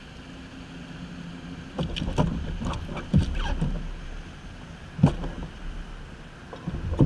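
Gear knocking and rattling against a plastic fishing kayak as a landing net and tackle are handled: a cluster of knocks about two seconds in, then two sharp single knocks, over a low steady background noise.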